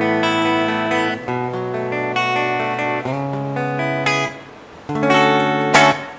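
Electric guitar on the clean preset of a Vox ToneLab EX modeling pedal: chords strummed and left to ring, changing about every second or so. There is a short dip about four and a half seconds in before new strums.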